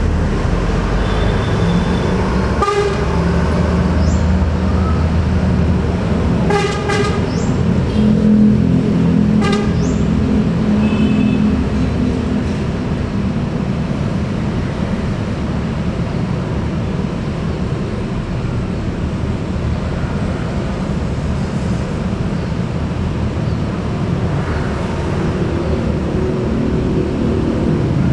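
Large bus diesel engines running with a steady low drone, and short bus horn toots: one about three seconds in, a quick series a few seconds later, then two more.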